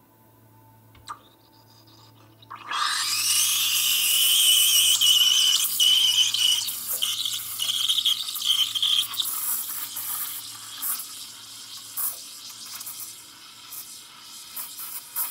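Steam from a stovetop moka-pot steam wand frothing milk in a stainless steel pitcher. It starts suddenly about two and a half seconds in as a loud hiss with a high whistling squeal, then settles into a quieter hiss with small pops after about ten seconds as the gas is turned down.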